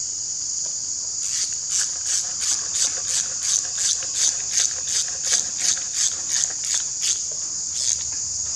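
Hand socket ratchet clicking in a steady run of short, sharp clicks, about three a second, as a timing-cover bolt is wound in by hand. It starts about a second in and stops about a second before the end. A steady high-pitched insect drone continues underneath.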